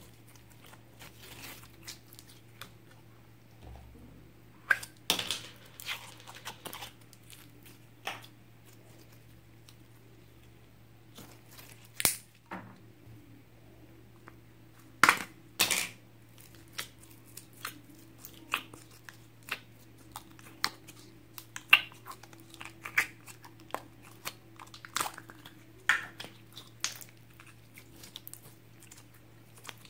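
Hands squeezing, stretching and pulling apart sticky slime studded with small beads and glitter, making irregular wet pops, crackles and tearing clicks, a few of them much louder than the rest.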